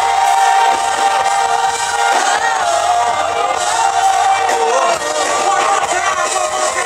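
Live R&B band playing a slow song, with a male lead voice singing long notes that bend and run up and down over the band.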